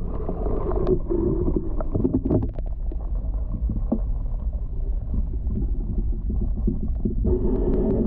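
Muffled underwater sound from a GoPro submerged in a spring-fed forest pond: a steady deep rumble with scattered, irregular soft clicks and knocks.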